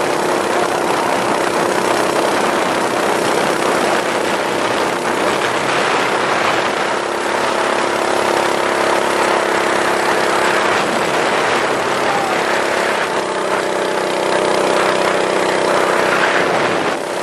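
Minibike's small engine running steadily at riding speed, with a rush of wind and road noise.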